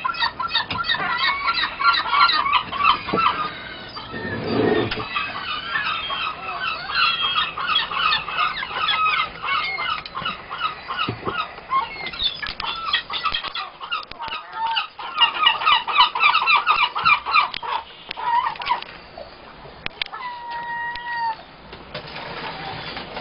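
A flock of birds calling: many rapid, repeated calls overlapping each other, thinning out near the end to a few separate drawn-out calls.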